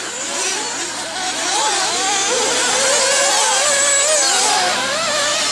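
Several 1/8-scale nitro buggy engines buzzing at high pitch, their pitches rising and falling together as the cars rev on and off the throttle around the track.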